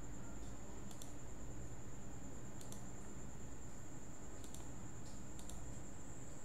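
Several faint, sharp computer mouse clicks over a steady low background hiss and a thin, steady high-pitched whine.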